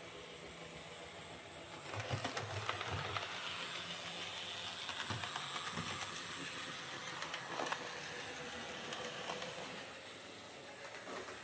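OO gauge Oxford Rail Adams Radial model tank locomotive running on a model railway layout: its small DC motor and gears whirring, and its wheels clicking over the rail joints. The sound grows louder about two seconds in and fades again near the end.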